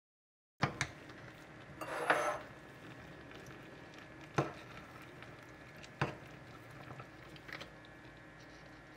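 Metal ladle stirring leeks and sujebi in a pan, clinking and knocking against the pan's side a few times a second or more apart, with a short scrape of the vegetables being turned.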